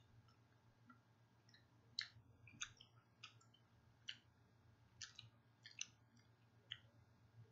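A person chewing a jelly bean with the mouth closed: faint, irregular clicks, about nine from about two seconds in, over a low steady hum.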